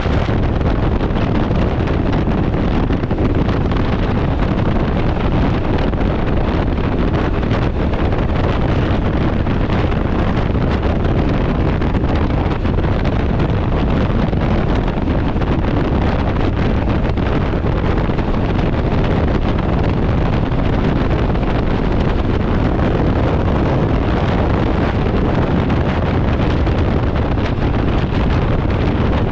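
Steady wind noise buffeting the microphone while a Can-Am Ryker 900 three-wheeled motorcycle cruises at road speed, the drone of its three-cylinder engine underneath.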